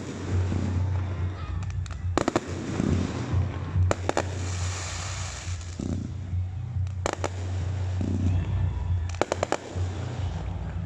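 Fireworks going off in a display: sharp bangs, some in quick runs of several, with a hissing crackle swelling about four seconds in, over a steady low hum.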